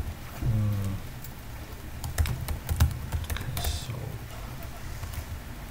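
Computer keyboard being typed on, irregular clusters of keystroke clicks with short pauses between them, the loudest strokes a little under three seconds in. A brief low hum sounds about half a second in.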